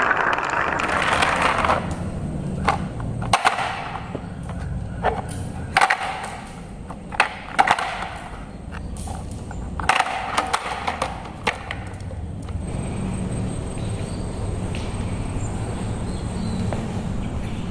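Marbles rolling along a wooden marble run, a steady rumble broken by sharp clacks as they drop and knock against the wooden track pieces.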